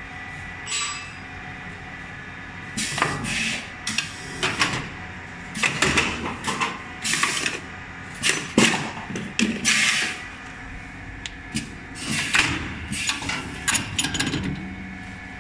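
Lead battery-terminal casting mold machine working: irregular bursts of metallic clatter and hissing over a steady machine hum, starting about three seconds in and stopping shortly before the end.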